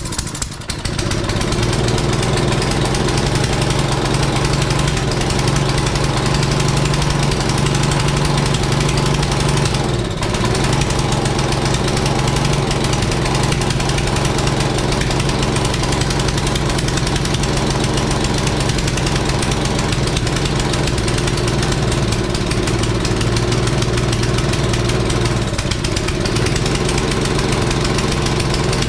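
Craftsman pressure washer's small engine catching on a pull start and running steadily, with a brief dip about ten seconds in and another near the end: first start on fresh fuel with a replacement carburetor and no starting fluid.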